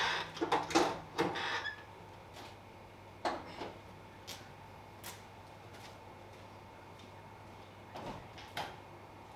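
Clunks and knocks of a Range Rover Classic bonnet being lowered and shut, a quick cluster in the first second and a half. A few single knocks follow, spread out through the rest.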